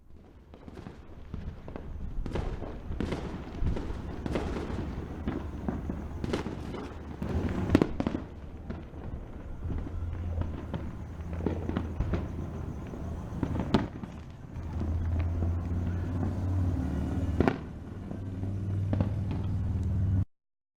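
Backyard fireworks: a string of sharp bangs and pops, a second or so apart, over a steady low rumble. The loudest cracks come about eight and fourteen seconds in, and the sound cuts off suddenly near the end.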